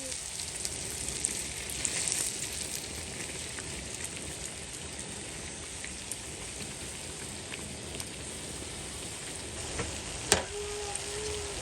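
Puff puff dough balls deep-frying in hot oil: a steady sizzle with scattered small crackles. A sharp click about ten seconds in, followed by a brief voice.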